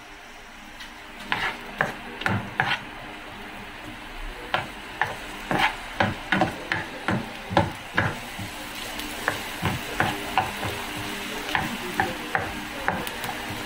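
Diced onion sizzling in hot oil in a small nonstick frying pan, stirred with a spatula that knocks and scrapes against the pan about twice a second from about a second in. The sizzle grows louder in the second half.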